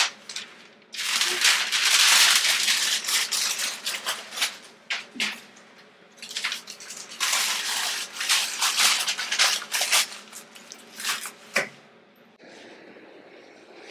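Sheets of packing tissue paper rustling and crinkling in irregular bursts as they are crumpled and stuffed into fabric ruffle bags. The crinkling stops about twelve seconds in, leaving a faint steady hiss.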